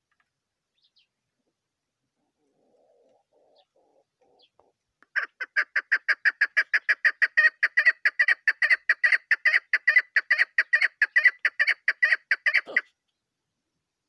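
Female chukar partridge calling: a fast, even series of sharp clucking notes, about five or six a second, that starts about five seconds in, keeps going for some seven seconds and stops abruptly.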